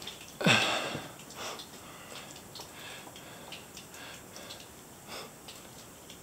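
A man's loud, short breath with a falling voice about half a second in, then faint clicks and scuffs of footsteps on rock.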